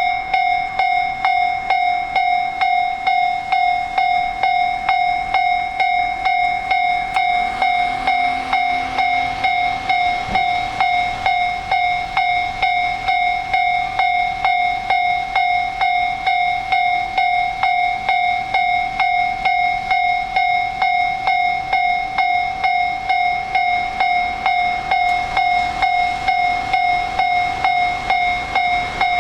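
Japanese railroad crossing warning bell ringing in a steady, even rhythm of about two strikes a second. It signals that a train is approaching and the crossing gates are lowering.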